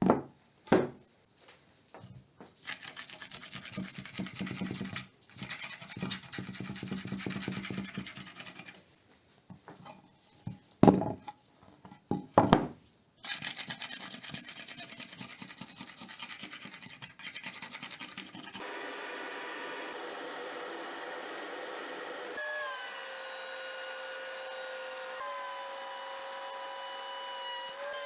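Hand work on wood: a few sharp knocks, then long stretches of sawing or rasping broken by more loud knocks. For the last third a power tool's electric motor runs steadily, its pitch shifting a few times.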